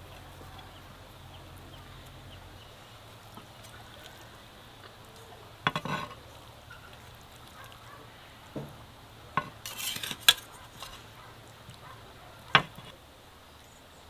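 A fork clinking and scraping against an earthenware plate as pasta is twirled and lifted, a handful of sharp clinks in the second half.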